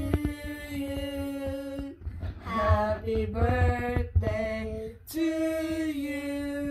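Children singing the opening of a birthday song in long held notes, with short breaks between the phrases.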